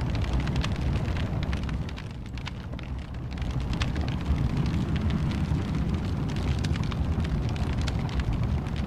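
Wood fire burning in a fireplace: a steady low rumble of flames with frequent sharp crackles and pops.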